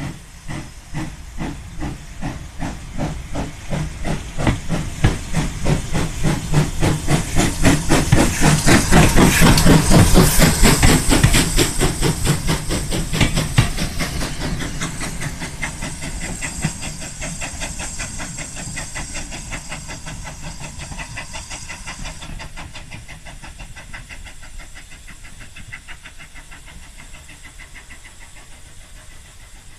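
Steam locomotive of an auto train pulling away hard, with a hiss of steam. Its exhaust beats start spaced and quicken as it accelerates. They are loudest about ten seconds in as the train passes, then fade as it draws away.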